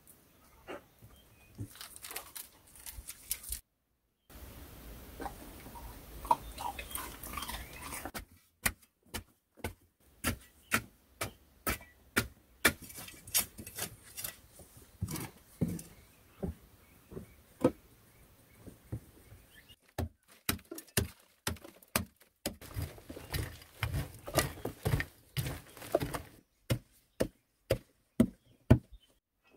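A short-handled digging pick striking packed clay soil over and over, about two blows a second, in several runs broken by abrupt cuts.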